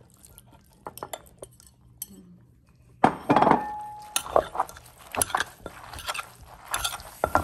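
A spoon and wooden pestle clinking, knocking and scraping in a clay mortar as rice noodles and shrimp are tossed. There are faint scattered clicks at first, then a loud clatter with a brief ring about three seconds in, followed by a quick run of clinks and knocks.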